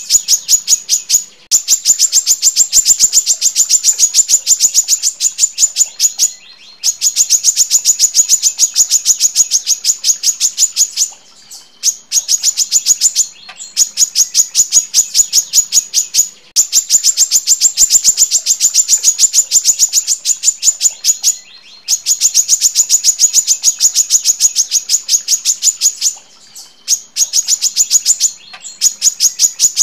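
Female brown-throated sunbird singing long, tight runs of fast, sharp, high notes. Each run lasts a few seconds, and short pauses separate one run from the next.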